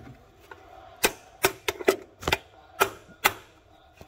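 Hammer striking a socket extension set on a seized EGR cooler bolt of a 2015 Ford F-250 Power Stroke: six sharp strikes, about two a second, starting about a second in. The blows shock the bolt loose so it can be spun out rather than snapped.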